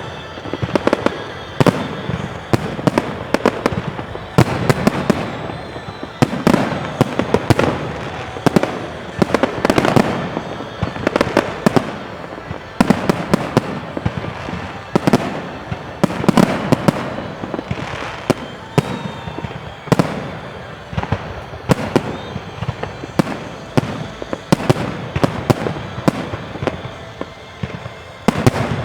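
Fireworks display: a continuous barrage of aerial shell bursts, with booms every second or two and dense crackling between them.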